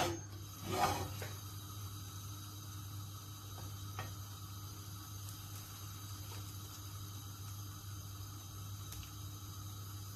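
Bread slices toasting in a frying pan on a gas stove: a quiet steady hiss over a low hum, with a couple of soft knocks in the first second as the pan and slices are handled, and a few faint ticks later.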